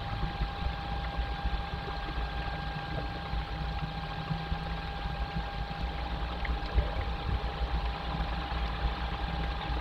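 Steady background noise picked up by a nest-box camera microphone, with a constant thin whine running through it; no kestrel calls.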